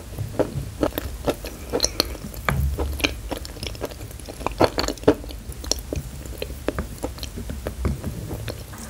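A mouthful of hard white edible chalk being chewed and crunched, with many crisp crackles coming a few a second at irregular intervals.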